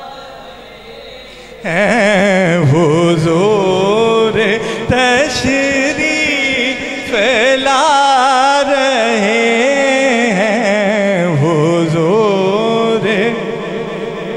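A solo male voice singing a naat, an Urdu devotional poem, into a microphone: long held phrases with rapid ornamental turns in pitch, coming in loudly about two seconds in.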